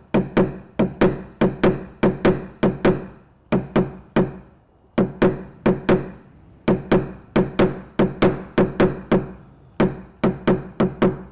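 Paintless dent repair tap-down tool knocking on a car body panel, about three quick taps a second in runs with short pauses, each tap ringing briefly in the sheet metal. The technician is tapping down the high spots around the dent to level the metal.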